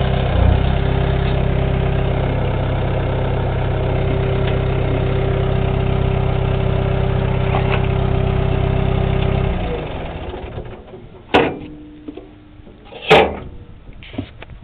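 Bulldozer's diesel engine idling steadily, then shut off about ten seconds in and running down to a stop. Two sharp knocks follow, the second the loudest.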